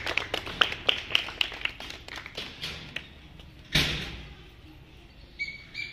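A few people clapping, an irregular patter of claps that thins out over the first two to three seconds. About four seconds in there is a loud thump that dies away over about a second, and two short beeps come near the end.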